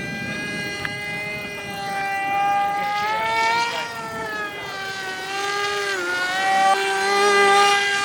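Radio-controlled model aircraft motor and propeller in flight, a steady pitched drone that rises and falls as the plane manoeuvres. The pitch drops sharply as it passes about six seconds in, and it grows louder twice.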